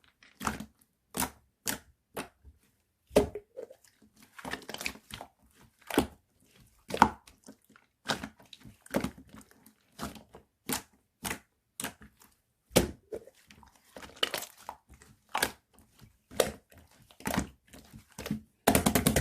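Irregular sharp taps and clicks mixed with crinkling, as of small objects and plastic or tape being handled by hand, with a quick run of rapid taps near the end.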